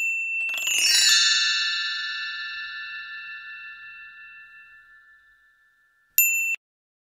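Logo-intro sound effect. A short high beep, then a swish about half a second in that opens into a bright, bell-like chime. The chime rings out and fades slowly over about five seconds. A second short high beep comes about six seconds in.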